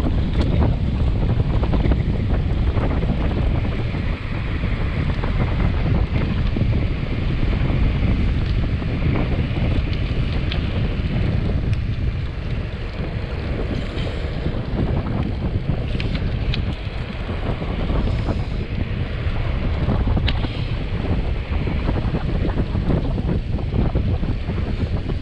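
Steady wind buffeting the microphone as a road bike descends at about 35 to 40 km/h.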